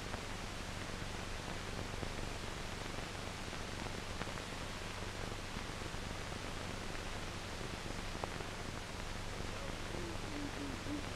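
Steady hiss and low hum of an old film soundtrack, with a few faint clicks and no speech or music.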